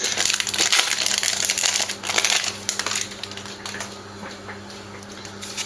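Foil booster pack wrapper crinkling as it is torn open and handled. It is loudest in the first two seconds or so, then thins to softer crackles and light ticks, over a faint steady electrical hum.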